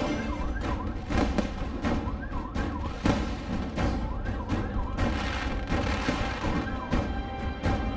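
Fireworks and firecrackers going off in a dense run of cracks, with repeated short whistling glides, over loud music.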